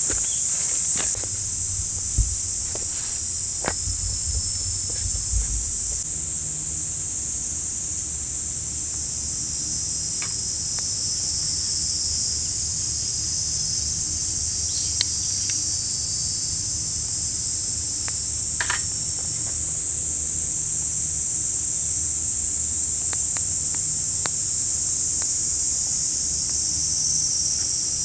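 Steady, high-pitched chorus of summer insects, with a few scattered sharp clicks and a low rumble underneath.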